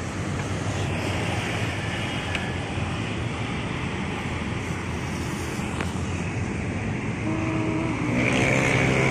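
Street traffic passing by, a steady mix of vehicle engines and tyre noise; near the end one vehicle's engine comes closer and grows louder.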